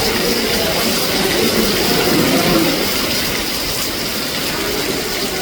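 Heavy rain falling: a loud, steady hiss that eases slightly toward the end.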